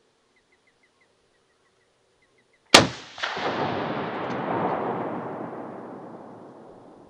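A single hunting-rifle shot about two and a half seconds in: a sharp crack, a second report about half a second later, then a long rolling echo that fades over about four seconds.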